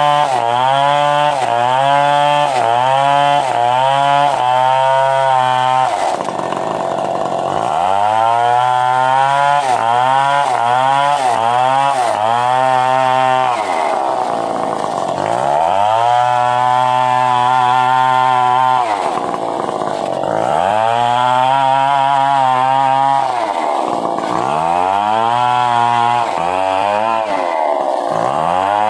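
Stihl 070 two-stroke chainsaw sawing a coconut palm trunk into rafters and planks. The engine pitch sags under the load of the cut and climbs back again and again: short quick dips at first, then several longer, deeper sags.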